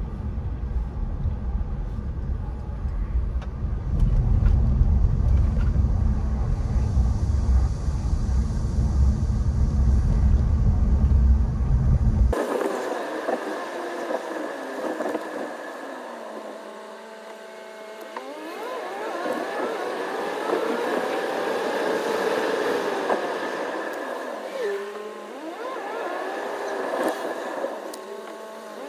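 Road noise inside a moving car with a side window open, a heavy low rumble from the car driving. About twelve seconds in the rumble cuts off abruptly, leaving higher traffic sound with rising and falling tones as vehicles go past.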